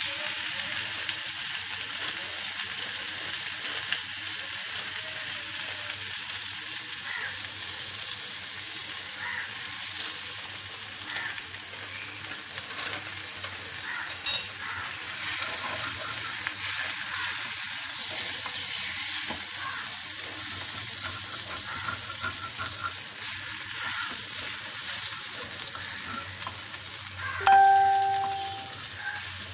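Mashed rui fish filling frying in a little oil in a pan, sizzling steadily as it is stirred and scraped with a wooden spatula. A sharp knock comes about halfway through, and a short beep sounds near the end.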